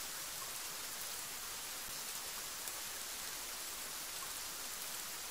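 Steady rain, an even, unchanging hiss of rainfall.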